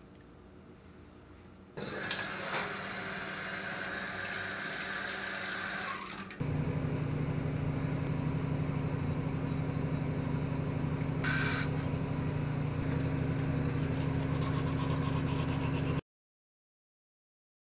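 Water running from a sink tap for about four seconds, followed by a steady low hum for about ten seconds that cuts off abruptly.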